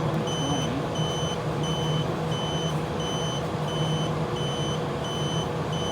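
Battery-powered continuity tester beeping steadily, about two short high beeps a second, over a steady low hum; the beeping signals continuity through the closed switch contacts.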